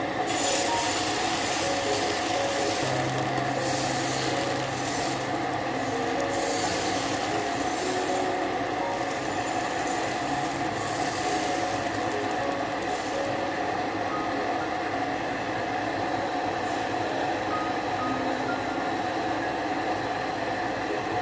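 Ladle spreading dosa batter in circles on a hot griddle: a steady sizzling hiss with the scraping rub of the ladle over the pan.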